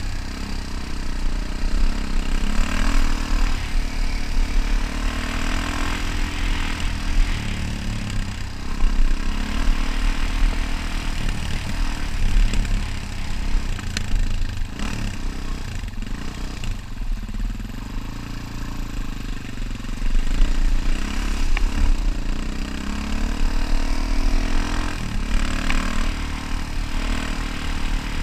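Dirt bike's engine running close by on a rough trail, its pitch rising and falling as the throttle opens and closes, over a heavy, uneven low rumble from the ride.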